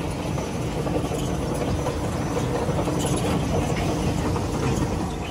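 Sugar beet pulp bagging machinery running: a belt conveyor feeding pulp into the bagging press hopper, with a steady mechanical hum and a few faint held tones.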